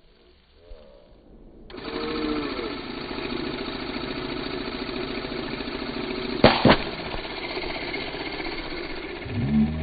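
Cordless air inflator starts about two seconds in and runs steadily, pumping air into a plastic-bottle water rocket. About six and a half seconds in come two sharp pops as the pressurised rocket lets go of the launcher.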